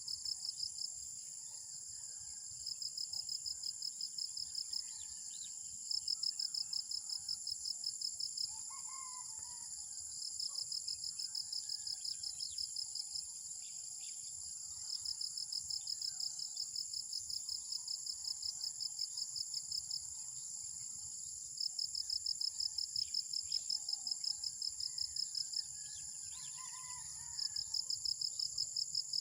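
Insects chirping in repeated bouts of rapid, even pulses lasting two to five seconds each, over a steady high-pitched insect drone, with a few faint bird calls.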